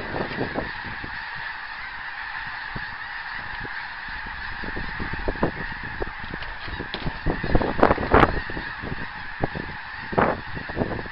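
A large flock of snow geese flying overhead, calling continuously in a dense chorus of many overlapping honks.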